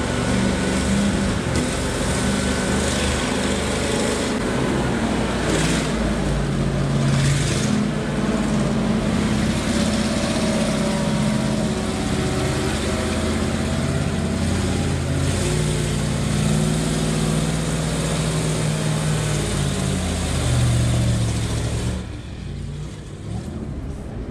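Engine of a heavy military multi-axle off-road truck working hard and revving up and down as it climbs over sand mounds; it turns quieter for the last couple of seconds.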